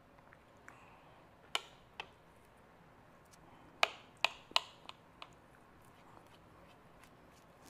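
A table knife clinking against a plate while cutting sausage: scattered sharp clinks, two in the first couple of seconds and a quick run of five around the middle.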